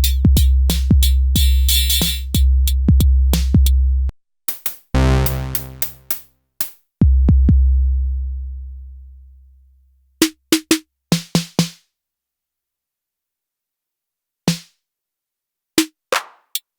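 Elektron Syntakt drum machine playing electronic drums: a steady kick and hi-hat beat for about four seconds, then a pitched fill and one long low kick that fades out over about three seconds. After it come a few quick hits and then scattered single hits with silent gaps between them.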